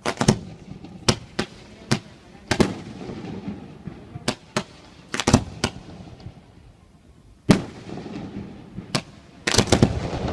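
Fireworks display: a dozen or more sharp bangs at irregular spacing, with a rapid cluster of bangs near the end.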